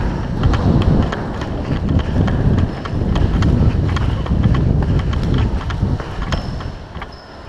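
Running footsteps and gear jostling on a helmet-mounted camera, with heavy uneven rumble on the microphone and scattered sharp clicks.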